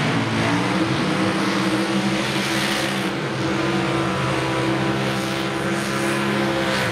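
A drag-racing car's engine running at a steady pitch, an even engine rumble with a harsh hiss over it, cut off abruptly at the end.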